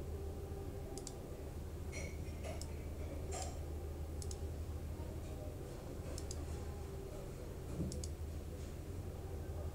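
Computer mouse clicking, a click every second or so and some in quick pairs, over a steady low hum.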